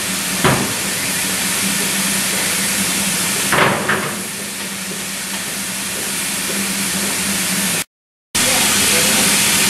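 Steady hiss of steam with a low hum from a BR 9F 2-10-0 steam locomotive standing in steam, with a couple of knocks about half a second in and around four seconds in. The sound breaks off for a moment near the end, then the hiss carries on.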